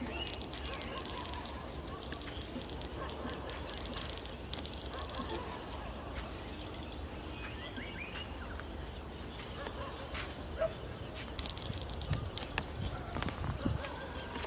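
Outdoor wildlife ambience: many birds chirping and calling over a steady high insect drone. A few low thumps come near the end.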